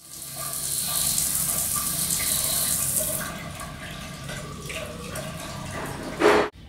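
Shower water running and splashing onto a tiled floor, loud for about three seconds, then quieter. Near the end comes a short loud rising whoosh that cuts off suddenly.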